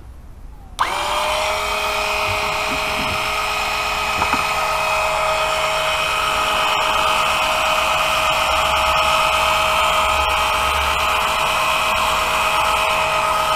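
Electric oil extractor pump switched on about a second in, then running with a steady even whine. Its suction hose does not yet reach the oil in the sump, so it is not yet drawing oil.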